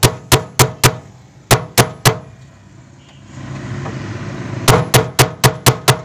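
Quick hammer strikes, about four a second, in three runs with a pause of about two seconds midway, knocking the nut of a washing machine's new pulsator tight onto its shaft.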